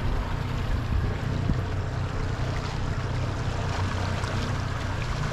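Yamaha outboard motor idling low and steady on an inflatable boat, with water and wind noise over it.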